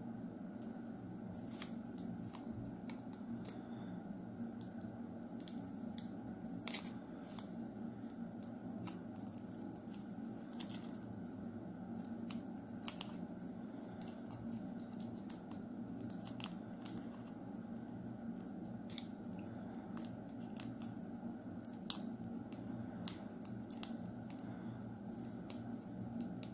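Masking tape crackling and crinkling in scattered small clicks as it is wrapped and pressed by hand around a small wire frame, over a steady low hum.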